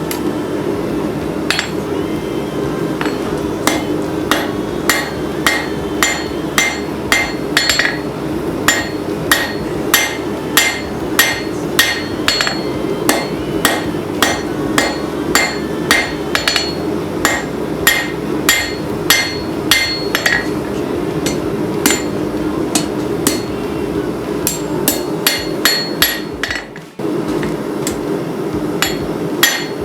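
Hand hammer forging hot steel on an anvil: steady, regular blows about one and a half a second, each with a bright metallic ring, over a constant low hum. There is a brief pause near the end, then the hammering resumes.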